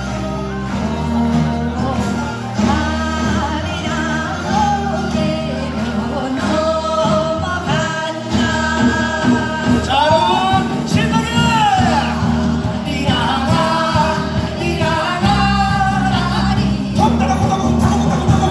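A live orchestra playing a song with several singers singing into microphones, their voices wavering in pitch over a steady accompaniment.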